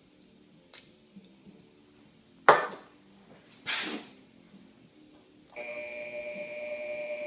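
Two sharp clanks, the first with a brief ring. About three-quarters of the way in, the motor of a Milwaukee 4203 magnetic drill press starts abruptly and then runs steadily with a whine.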